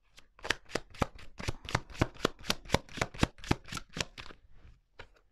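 Tarot deck being shuffled by hand: cards slapping together in an even run of about four strokes a second that stops about four and a half seconds in, followed by a couple of fainter card clicks.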